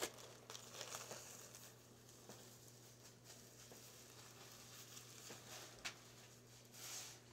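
Near silence with faint rustling of a plastic bag and shirt being handled, a little stronger in the first second and again near the end, over a steady low hum.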